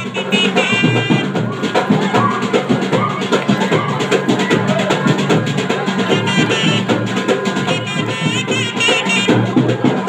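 Kodava valaga music for dancing: dense, fast drumming with a high melody line wavering above it.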